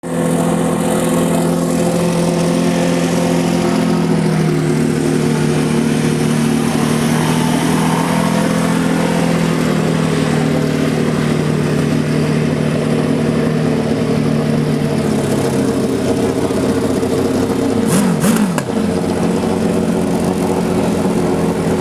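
Drag-racing motorcycle engine running at a steady idle, its pitch stepping slightly a few times, with a brief wavering change in pitch and a few sharp clicks about three quarters of the way through.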